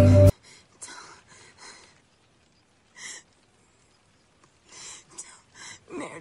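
A song cuts off abruptly just after the start. Then a badly injured woman gasps and breathes faintly, with a few breathy whispered words.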